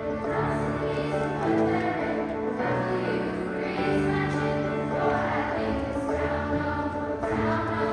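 Girls' choir singing slow, held chords that change about once a second, with piano accompaniment underneath.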